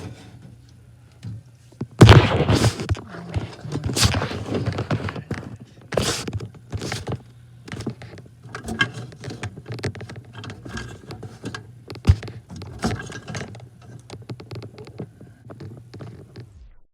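Irregular knocks and thunks, loudest about two seconds in and again near twelve seconds, over a low steady hum; it all cuts off just before the end.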